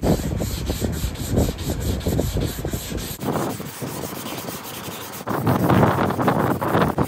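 A sanding disc rubbed back and forth by hand along the edge of an epoxy-filled pecky cypress tabletop, a quick rasping stroke repeated several times a second, louder near the end.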